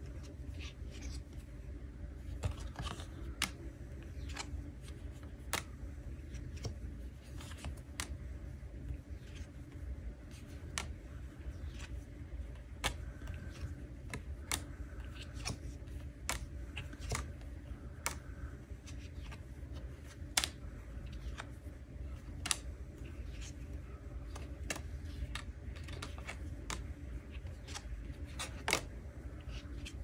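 Paper message cards being flipped over and laid down on a wooden table: irregular sharp snaps and taps of card stock, roughly one every second, over a faint low hum.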